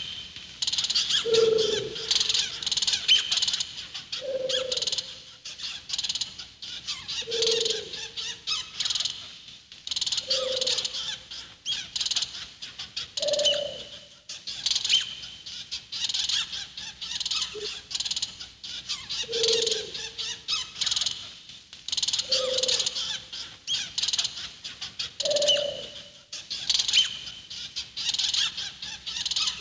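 Bird-filled jungle ambience: a low hooting call repeats about every three seconds over continuous high chirping, in an even, looped pattern.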